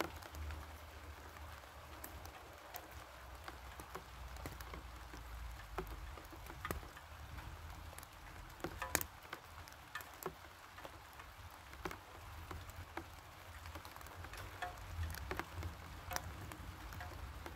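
Rain falling steadily, with many separate drops ticking sharply at irregular moments over the patter, over a steady low rumble.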